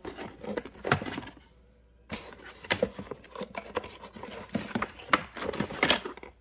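Rummaging in a drawer: plastic battery blister packs and loose items clicking, scraping and crinkling as they are handled, with a brief pause about a second and a half in.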